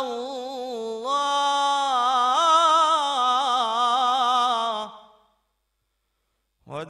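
A man reciting the Quran in a melodic, chanted style, drawing out one long ornamented note that waves up and down in pitch and fades away about five seconds in. After a brief silence his voice comes back in just before the end.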